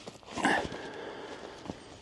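A hand digging tool scraping into dry, stony field soil: a loud scrape about half a second in, then softer scraping and a sharp tap near the end.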